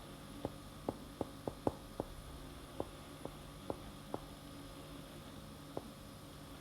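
Steady electrical hum with about a dozen short, sharp clicks at irregular intervals, most of them in the first two seconds and a last one near the end.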